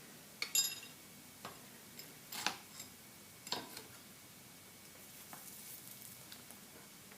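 Forged steel hooks clinking and knocking as they are handled and wiped with a towel: about six short metallic clinks, the one just over half a second in ringing briefly.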